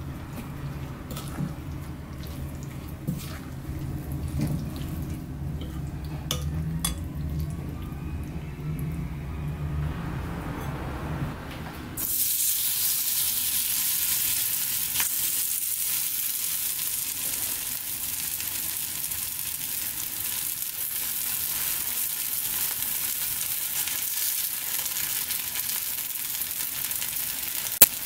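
A fork stirring kimchi pancake batter in a glass bowl, with scattered clinks. About twelve seconds in it changes abruptly to the batter sizzling in hot vegetable oil in a non-stick pan, a steady hiss, with one sharp click near the end.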